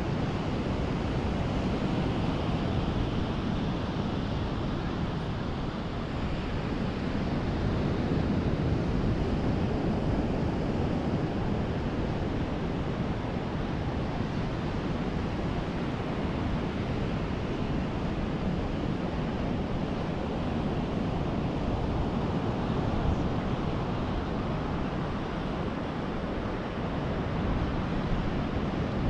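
Ocean surf breaking and washing up a beach in a steady rush of noise, with wind buffeting the microphone.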